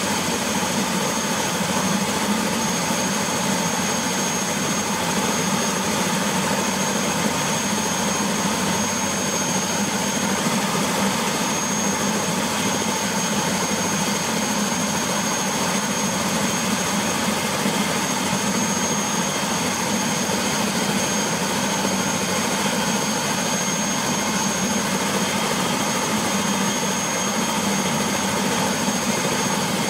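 Airbus AS350B3 (H125) helicopter's Turbomeca Arriel turboshaft and main rotor running steadily with the aircraft sitting on the ground. A high turbine whine rides over the engine and rotor noise and does not change.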